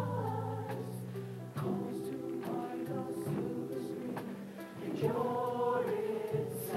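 Show choir singing in harmony over steady low instrumental notes.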